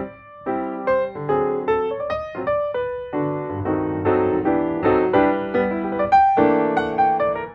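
Background piano music, a quick stream of notes and chords.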